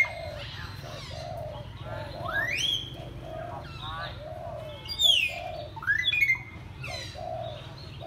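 Common hill myna giving loud upward-sweeping whistles, about three of them, the second and third close together. Under them a dove coos in a steady run of short low notes, about two a second.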